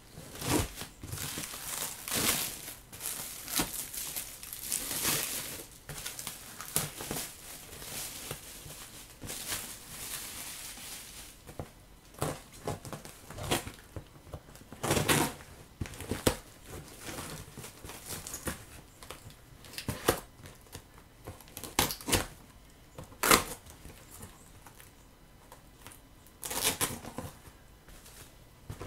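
Thin black plastic wrapping crinkling and tearing as it is cut with a knife and pulled off a parcel, dense at first. Then short separate bursts of ripping and scraping as the knife slits the tape on the cardboard box underneath.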